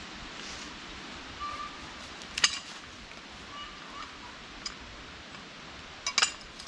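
Rope-rigging pulley hardware being handled as rope is threaded through it: a sharp clink about two and a half seconds in and a quick double clink near the end, over low outdoor background with a few faint chirps.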